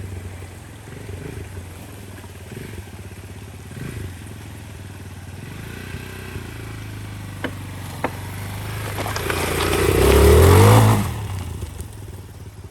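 Motorcycle engine running steadily, then swelling to a loud, rising rev or close pass about ten seconds in before dropping away. Two sharp clicks are heard shortly before the peak.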